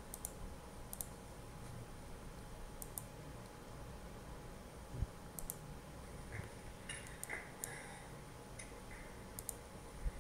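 Sparse sharp clicks of a computer mouse and keyboard, in small clusters with pauses between them.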